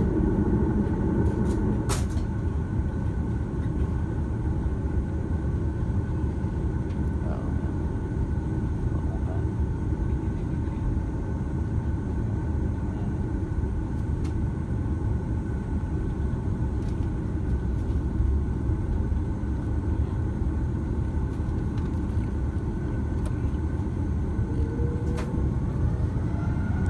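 Airbus A330-200 with Rolls-Royce Trent 700 engines taxiing, heard from inside the cabin at a window seat beside the engine. A steady low rumble runs under a faint, steady engine whine, with a few faint clicks, and the whine rises in pitch near the end.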